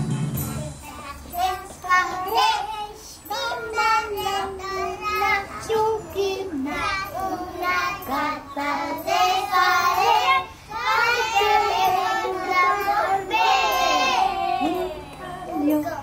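A group of three-year-old children singing a Christmas song together.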